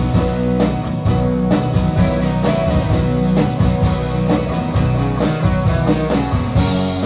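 Live rock band playing an instrumental passage between vocal lines: several electric guitars, bass and drum kit on a steady beat.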